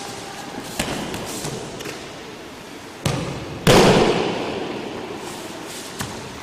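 A person thrown down onto martial-arts mats: a thud about three seconds in, then a louder slap and thump about half a second later that rings on in the hall. Lighter footfalls on the mat come before it.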